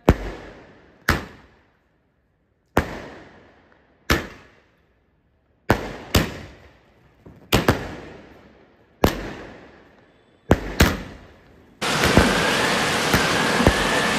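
A 60-shot aerial firework cake firing: single sharp bangs about every one to one and a half seconds, each fading away in an echo. About twelve seconds in, a loud, continuous dense crackle takes over.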